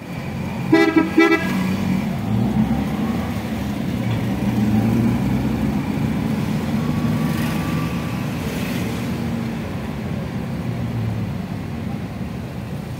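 Two short vehicle horn toots about a second in, over the steady engine and road noise of a moving vehicle heard from inside it.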